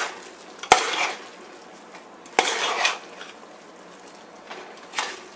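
Slotted metal spatula stirring and tossing cooked basmati rice in a metal pot, mixing biryani: a sharp clink against the pot about a second in, then three bouts of scraping and rustling rice, the longest around the middle.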